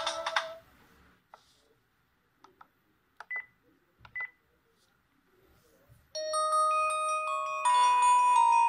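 NEC e313 mobile phone's ringtone stops about half a second in; after a few soft clicks and two short high beeps, the next ringtone starts about six seconds in, a many-voiced melody of bright bell-like tones.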